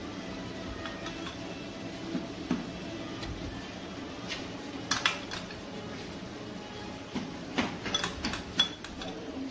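Kitchen utensils clinking and knocking against dishes and pans, a few scattered strikes with a cluster near the end, over a steady low hum.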